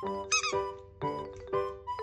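Bouncy background music with short, high squeaky chirps that recur in the tune about every two seconds.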